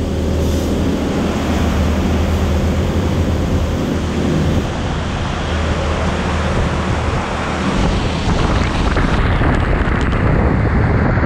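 Automatic car wash spraying water over a car: a steady rushing hiss of spray on the body and windshield over a low hum, growing slightly louder and fuller about eight seconds in as the spray thickens.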